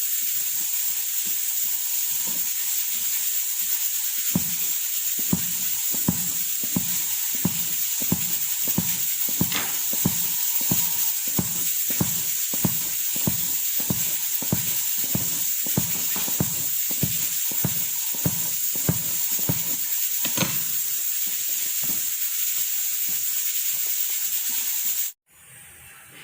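Noodles being stirred in a hot pan: a steady sizzling hiss with soft, regular stirring strokes about twice a second. It cuts off abruptly near the end.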